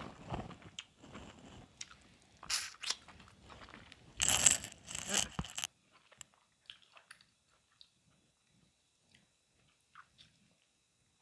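Close-miked chewing and mouth sounds of a person eating king crab meat, with louder crackling noises about two and a half seconds in and again from about four to five and a half seconds in. After that it goes nearly quiet, with only a few faint clicks.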